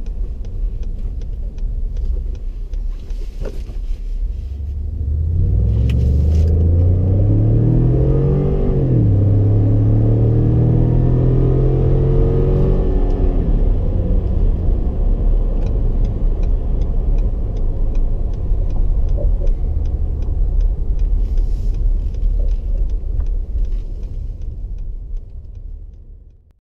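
Ford F-150's 3.5-litre twin-turbo EcoBoost V6, heard from inside the cab under hard acceleration. The engine pitch climbs, drops at an upshift about nine seconds in, and climbs again. The throttle comes off about thirteen seconds in, leaving a low rumble of engine and road noise as the truck slows.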